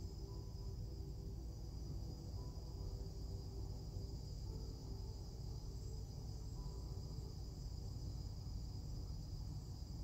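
Quiet background music: a few faint sustained notes over a steady high-pitched chirring hum and a low rumble.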